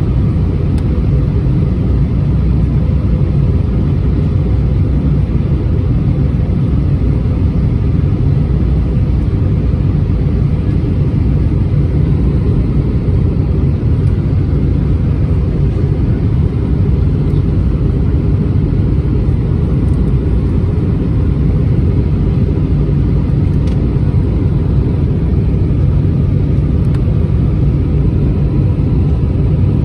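Cabin noise on an Airbus A320-231: a steady low rumble of its IAE V2500 engines and the air around the fuselage, heard inside the passenger cabin, unchanging throughout.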